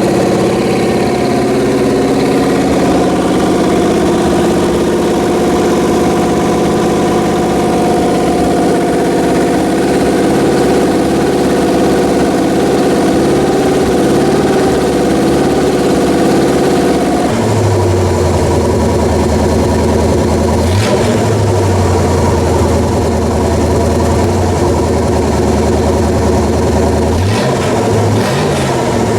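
Freshly rebuilt Pontiac 400 V8 with a new flat-tappet camshaft running on an engine stand during cam break-in. It holds a fast, steady speed, drops to a lower idle about 17 seconds in, and briefly revs up twice near the end. It is running healthily, with good oil pressure and no abnormal noises.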